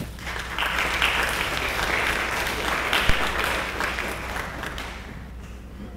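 Audience applauding, dying away near the end, with a single low thump about three seconds in.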